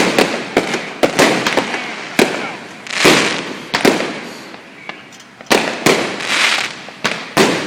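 Fireworks going off one after another: a string of sharp bangs, several of them trailing into about a second of crackling.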